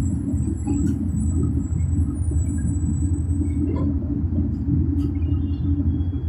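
City bus engine running with a steady low rumble, heard from inside the passenger cabin, with a few faint rattles and clicks.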